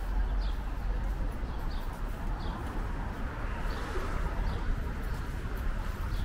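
Street ambience: a steady low rumble, with short high bird chirps repeating every half second to second.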